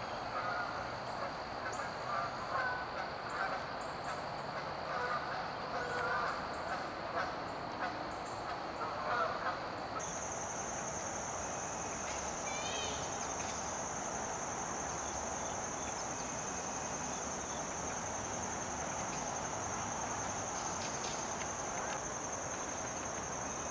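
Geese honking repeatedly for about the first ten seconds. The sound then changes abruptly to a steady high-pitched whine, with a few brief bird chirps.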